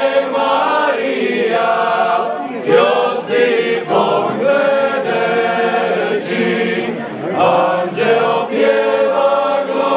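A choir singing long held chords, phrase after phrase, with short breaks between phrases.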